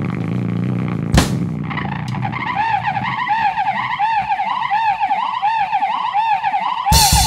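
Harsh noise music: a low droning hum and a sharp crash about a second in, then a wailing electronic tone that swoops up and down about twice a second like a siren. Near the end it breaks into a loud wall of distorted noise.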